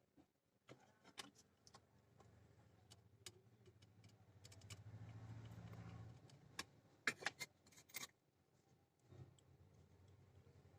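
Faint scattered clicks and taps of small tools and parts being handled at a phone repair bench, with a cluster of sharper clicks about seven to eight seconds in, over a low hum that swells for a couple of seconds in the middle.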